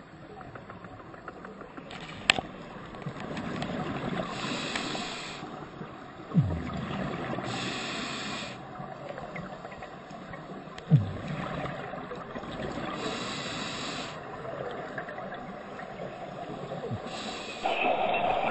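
Scuba diver breathing through a regulator, heard underwater: a hiss of inhalation comes every few seconds between the rumble and gurgle of exhaled bubbles. Three sharp knocks stand out, and a louder noise takes over near the end.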